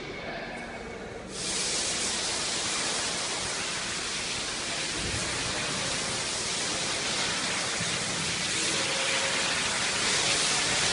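A loud, steady hiss cuts in about a second and a half in and runs on without change, with a single dull thump about five seconds in.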